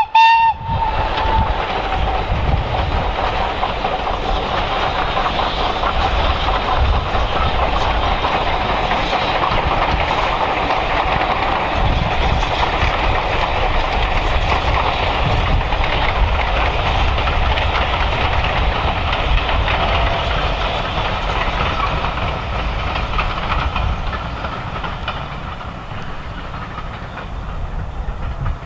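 BR Standard Class 4MT steam locomotive 76017 running past with its train of coaches, the carriages rattling over the rail joints; the tail of its whistle cuts off in the first second. The sound holds steady, then fades near the end as the train draws away.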